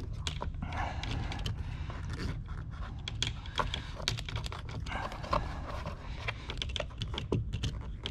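Irregular light clicks and rattles of a car's windshield wiper arm being handled and lifted off its spindle, over a steady low hum.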